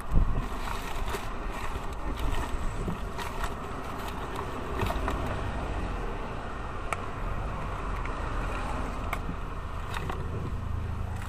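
Handling noise of a business card being taken from a metal card holder: rustling with a few sharp small clicks, over a steady low rumble.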